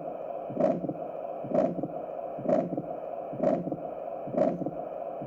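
Recorded heart sounds: a heartbeat about once a second over a steady hiss between the beats. The listener takes it for a stenosis murmur, unsure whether mitral or pulmonary stenosis, leaning towards pulmonary stenosis.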